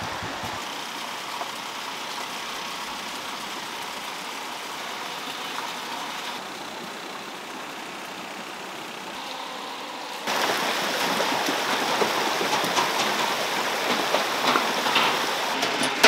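Steady rushing of running water, louder from about ten seconds in.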